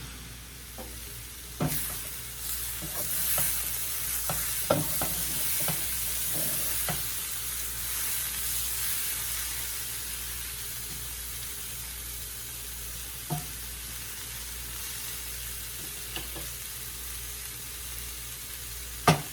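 Food sizzling in hot oil in a frying pan, with a cooking utensil knocking against the pan now and then as it is stirred; the sharpest knock comes near the end.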